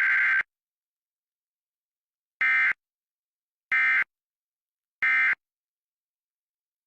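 Emergency Alert System digital data tones. A long buzzy burst cuts off about half a second in, then three short identical bursts follow about a second and a quarter apart: the end-of-message code that closes the EAS test.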